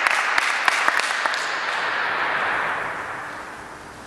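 A few faint clicks of a table tennis ball in the first second and a half, over the hiss of a reverberant gym that fades away toward the end.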